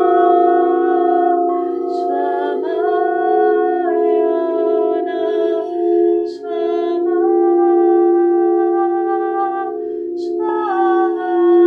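A woman's voice toning long held notes that change pitch every few seconds, with short breaths between phrases, over the steady, pulsing drone of ringing singing bowls.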